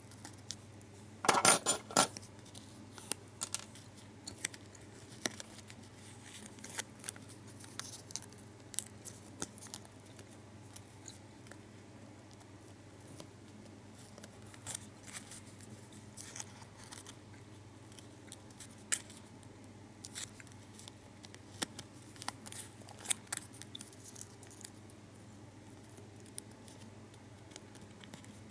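Foil gum wrapper crinkling and clicking as fingers fold and crease it: scattered small ticks throughout, with a louder cluster of crackles about a second and a half in.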